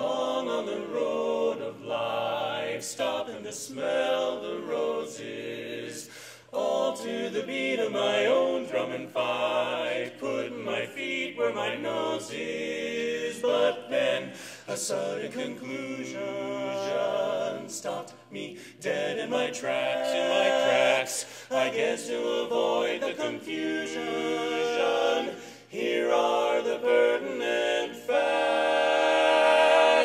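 Barbershop quartet of four men singing a cappella in close four-part harmony, ending on a loud held chord that cuts off sharply at the very end.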